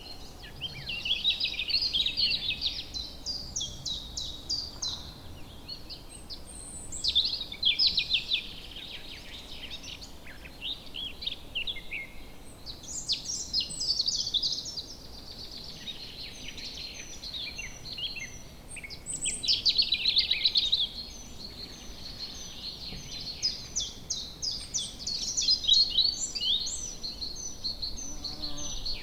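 Woodland birds singing: bursts of rapid, high, twittering song, each a couple of seconds long, come about every six seconds, with scattered short chirps between them over a faint steady background hiss.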